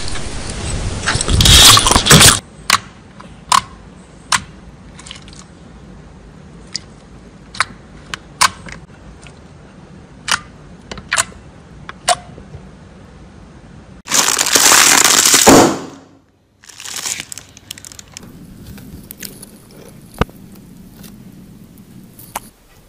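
Slime being handled: a loud crunching at the start, then scattered sharp pops and clicks as slime is pressed and poked. About fourteen seconds in, a second loud crunching lasts about two seconds.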